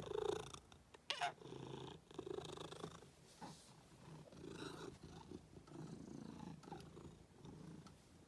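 A house cat purring close to the microphone, swelling and fading with each breath. There is a brief sharp click about a second in.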